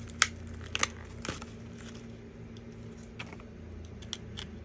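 A few short, light clicks and taps of small hardware parts being handled, the sharpest about a quarter second in, over a steady low hum.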